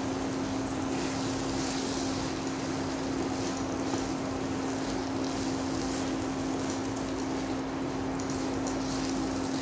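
Coarse moong dal and gram flour frying in oil in a nonstick pan, stirred with a wooden spatula: a steady sizzle with scraping of the spatula, over a constant low hum.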